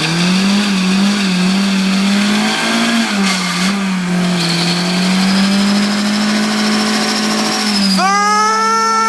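Volkswagen Passat's 16-valve four-cylinder engine held at high revs in a burnout, spinning a dummy spare tire, with the note wavering slightly. About eight seconds in, a high squeal rises over the engine.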